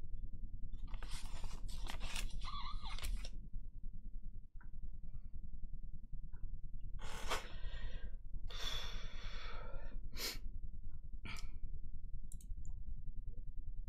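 Steady low hum of room tone, with several short hissy noises scattered through it.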